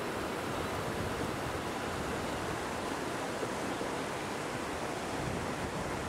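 River rapids rushing steadily over and between lava-rock boulders, an even hiss of white water.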